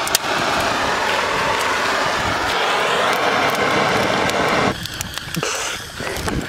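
Handheld propane blowtorch hissing steadily as its flame is played into a pile of dry sticks. The hiss cuts off sharply a little under five seconds in when the torch is shut off, leaving a few snaps.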